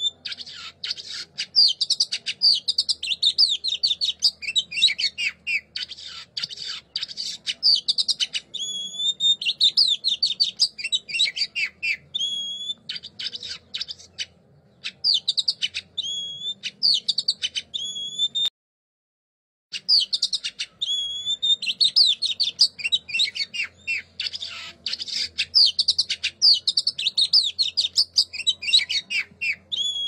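A songbird's song from a recorded training track for cage birds: fast runs of high chirps and trills mixed with clear whistled notes that slide up and down. It cuts off abruptly for about a second a little past the middle, then goes on.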